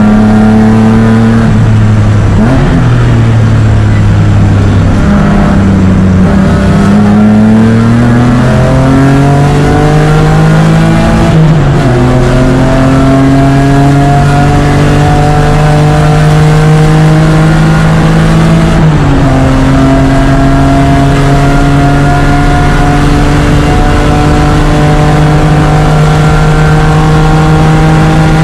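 BMW E36 race car engine heard from the cockpit at full load, pulling hard with its pitch climbing steadily through each gear. It drops sharply at upshifts about eleven and nineteen seconds in, after a lower, more even stretch at the start.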